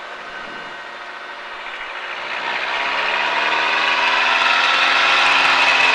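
Mooney single-engine airplane's piston engine and propeller throttling up to full power for the takeoff roll. It grows much louder and rises a little in pitch from about two seconds in, then holds steady.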